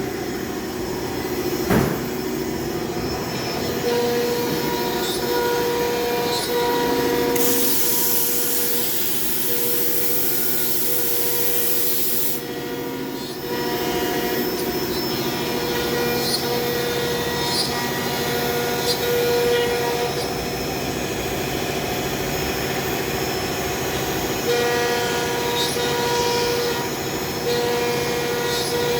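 CNC cutting machine running, with steady whining tones that break off and resume every second or two. There is a sharp knock about two seconds in, and a loud hiss lasting about five seconds about a third of the way through.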